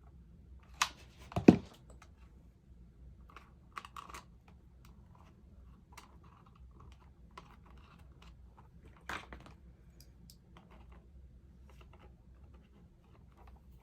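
Handling clicks and taps as thin plastic cutting-mat pieces are put together with hot glue, with a sharper knock about a second and a half in and another near nine seconds.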